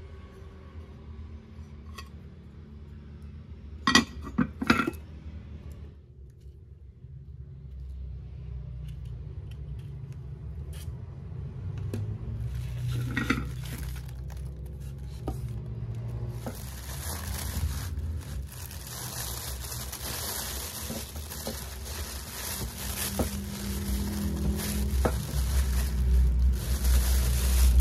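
A few sharp metallic clinks about four seconds in as the metal waffle plates are handled. From about twelve seconds in, plastic bag and styrofoam packing rustle and crinkle, getting louder towards the end as the appliance is unwrapped.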